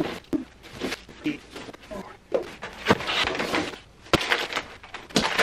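Cardboard packing being pulled out of a shipping box: cardboard scraping and rustling, with a few sharp knocks.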